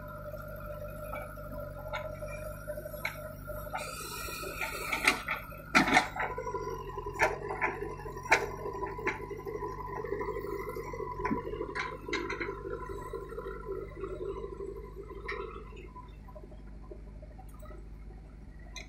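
A JCB backhoe loader's diesel engine runs steadily while its backhoe bucket digs and loads stony soil. There is a scraping rush about four seconds in, then a string of sharp knocks and clanks from the bucket and stones. A strained drone of the machine working under load fades near fifteen seconds.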